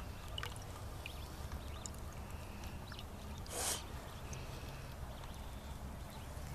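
Cooking fire under a wire-mesh grill crackling faintly, scattered small ticks over a low steady rumble, with one short hiss about three and a half seconds in.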